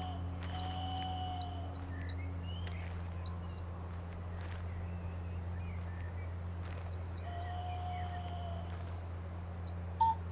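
Hand-turned wooden bird-whistles sounding bird-like calls: a long, slightly arching low whistle held together with a higher steady whistle, twice, scattered with short high chirps, over a steady low drone.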